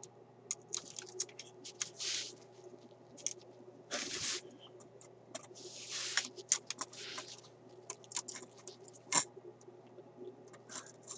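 Hand-handling noise from a Philco car radio's metal chassis and its wiring: scattered small clicks and taps, with a few short scraping rustles as it is turned over.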